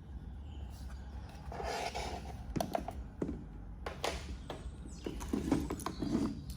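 Lightweight plastic toolbox being handled and moved about for measuring: scattered clicks, knocks and scraping rattles.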